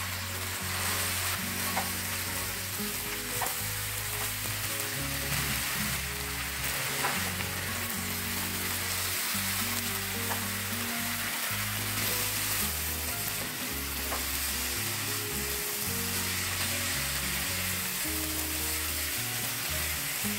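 Water spinach, tofu and egg sizzling steadily in a frying pan as they are stirred, with a few light scrapes of the spatula.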